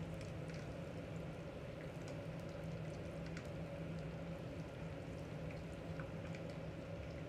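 Food cooking on the stove: light bubbling and crackling, with scattered small clicks, over a steady low hum.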